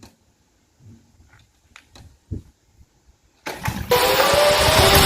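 A few faint scattered knocks, then about three and a half seconds in a loud, dense piece of music cuts in abruptly, with rising tones over a heavy low end.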